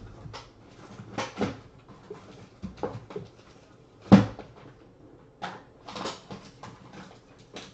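Someone rummaging around a desk in search of a marker: scattered knocks, clicks and clatter of objects being shifted, with one loud thump about four seconds in.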